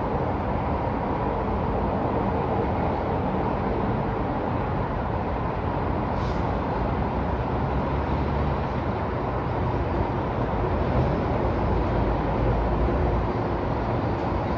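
Downtown city traffic: a steady wash of vehicle noise, with a heavier low rumble from about eight to thirteen seconds in as a larger vehicle passes, and a brief high squeak about six seconds in.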